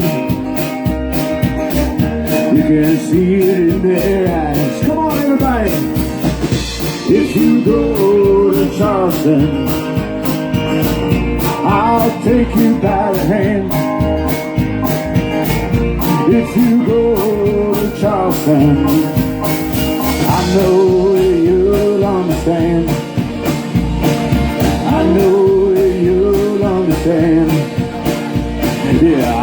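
Live band playing: a drum kit keeps a steady beat under guitar and a bending, wavering melody line.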